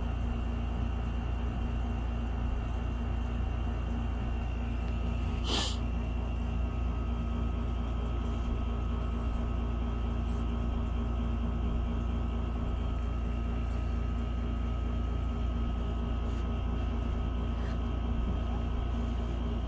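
Steady low droning hum with a faint constant whine over it, unbroken throughout. About five and a half seconds in there is one brief high squeak.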